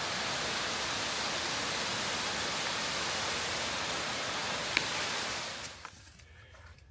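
Creek waterfall rushing steadily, fading out about five and a half seconds in to near quiet with a few faint clicks.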